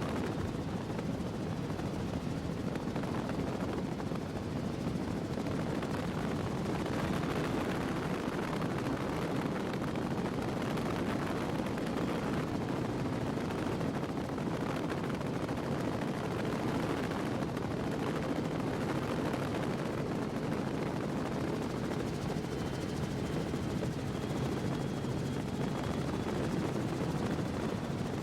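Quad Mercury Racing outboard engines on a Deep Impact 399 powerboat running hard at speed, a steady, even roar mixed with rushing wind and water.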